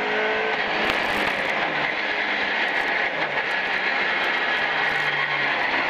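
Millington-engined Ford Escort Mk2 rally car heard from inside the cabin, its engine running hard under steady load beneath loud road and cabin noise.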